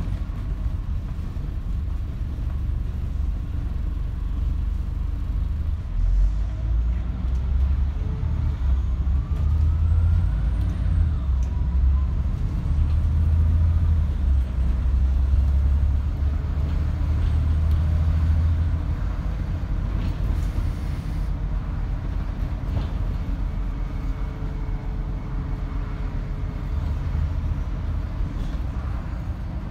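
Scania Omnidekka double-decker bus running under way, heard from the top deck: a steady low engine and drivetrain rumble that grows louder from about six seconds in, as the bus pulls harder, and eases off after about nineteen seconds.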